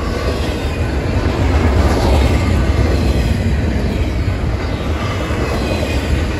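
Double-stack intermodal freight train's well cars rolling past: loud, steady rumble of steel wheels on rail, heaviest in the low end.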